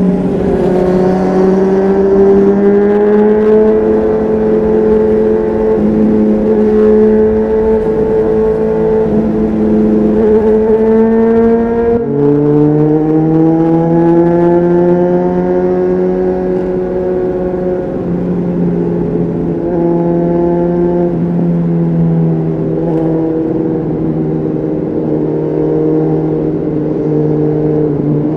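Honda CBR600RR's inline-four engine running through an aftermarket LeoVince exhaust under riding load, its note slowly rising and falling with the throttle. The pitch drops abruptly about twelve seconds in, then climbs and eases again.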